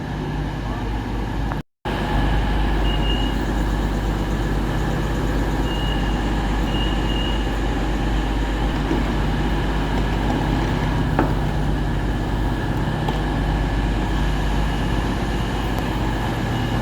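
A vehicle's engine running steadily with a constant low drone, broken by a brief dropout about two seconds in.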